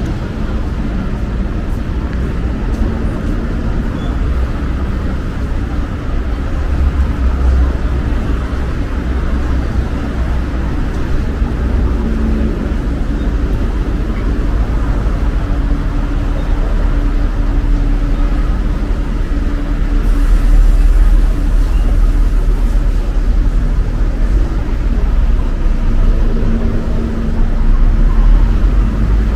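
City road traffic running past: a steady low rumble of engines and tyres with engine hum from passing vehicles. It grows louder about two-thirds of the way through and again near the end as a car passes close by.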